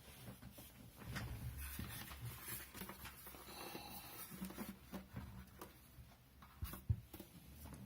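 Handling noises: light scraping, rustling and small clicks, with one sharper knock about seven seconds in.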